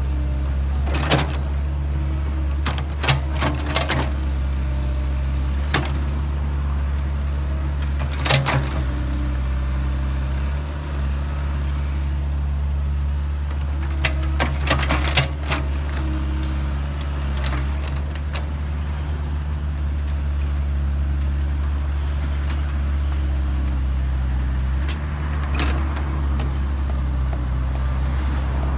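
Kobelco excavator's diesel engine running steadily at a constant pitch, with sharp knocks and clanks a few times, clustered about a second in, around three to four seconds, near eight seconds and again around fifteen seconds.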